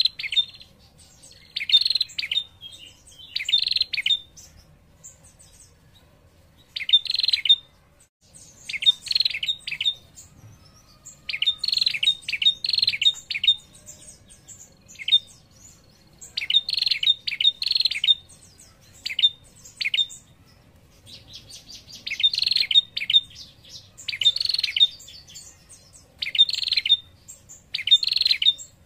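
Female prenjak calling: a string of short, rapid chattering trills, about one every second or two, with brief pauses between clusters. It is the female's call, which draws male prenjak to answer.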